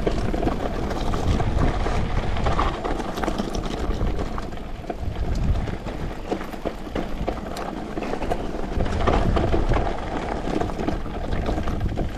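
Mountain bike riding fast down a rocky trail: a steady rumble of wind over the camera microphone and tyres on loose stones, broken by frequent rattles and knocks from the bike as it goes over rocks.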